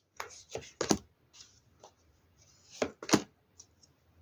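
Tarot cards being handled: a few short rustles and taps of cards near the start, then two more about three seconds in.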